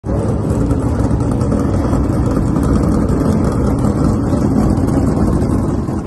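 Dirt late model race car engines running loud and steady at a dirt track.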